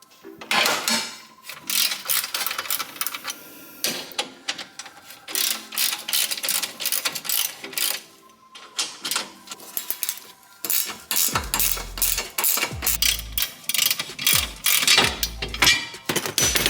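Ratchet wrench clicking, with metallic clanks of tools on suspension bolts, over background music whose bass line comes in about two-thirds of the way through.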